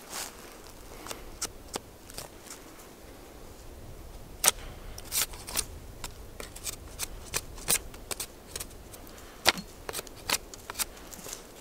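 Fixed-blade knife shaving bark off a green wooden stick: a run of short, sharp scraping strokes at an uneven pace.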